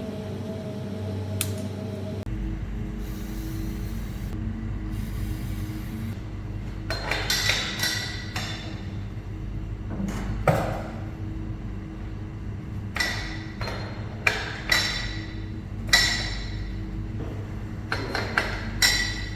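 Metal tools and parts clinking and knocking, with about eight sharp, ringing metallic strikes from about seven seconds in, over a steady low hum.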